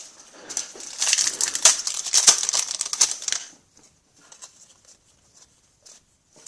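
Foil hockey-card pack wrapper crinkling and tearing for about three seconds as it is opened, then a few faint clicks of cards being handled.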